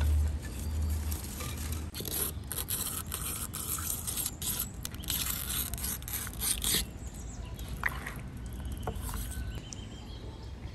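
Knife scraping and cutting through a whole beluga sturgeon on a wooden cutting board, splitting it along the backbone: a run of rough, quick scrapes from about two seconds in to about seven seconds, then quieter handling.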